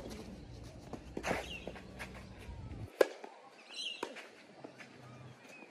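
Tennis balls struck with a racket during a rally on a clay court: a sharp pop at the start and another about three seconds in, with fainter sounds of play between.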